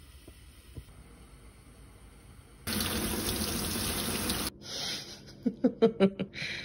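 Tap water running in a steady stream onto cabbage and a tomato in a metal mesh strainer, starting a little under halfway through and cutting off suddenly after about two seconds. Afterwards come a few short clicks and brief pitched blips.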